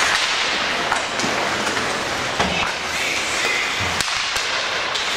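Steady, even background din of a game being played, broken by a few sharp knocks and a couple of low thuds.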